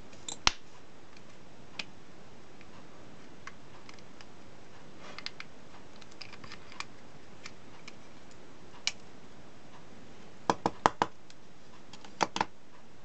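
Sharp clicks and taps of hands handling an opened Panasonic electric shaver's plastic housing and its cylindrical Ni-MH battery. There is one sharp click about half a second in, a few faint ticks, then a quick run of four clicks near the end followed by two more.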